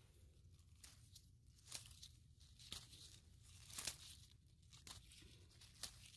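Near silence with faint, irregular crackles and rustles, a few a second and loudest about four seconds in, over a low steady hum.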